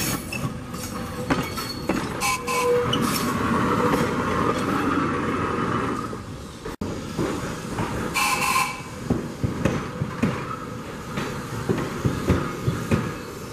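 Electric trolley car rolling past on its rails, with a steady run of wheel noise. A short high-pitched sound comes a little after the middle, then a series of sharp clicks from the wheels passing over rail joints near the end.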